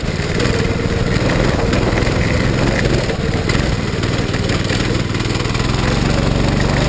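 Predator 212cc single-cylinder four-stroke go-kart engine running as the kart is driven along, its note holding fairly steady.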